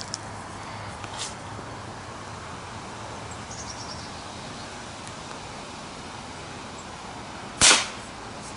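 A single shot from a Marlin XT-22 bolt-action .22 LR rifle firing CCI Quiet subsonic rounds: one short, sharp crack near the end, over steady wind noise. A light click about a second in.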